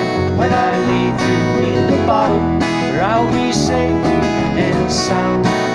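Instrumental break in a country-style song: guitar-led, over bass and a steady beat, with a bending lead note about three seconds in.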